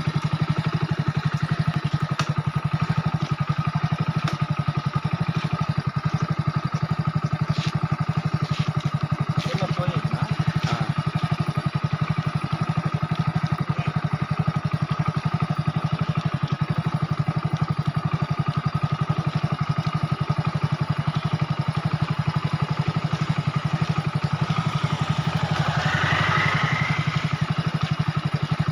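A small engine running steadily at an even, fast beat, with no change in speed.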